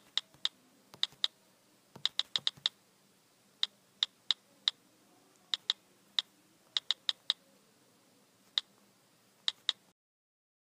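Keyboard typing sound effect: sharp, irregular keystroke clicks in short runs, stopping shortly before the end.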